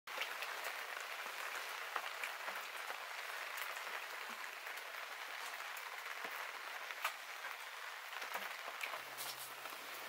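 Steady patter of light rain with scattered sharp drips. A faint low hum joins about nine seconds in.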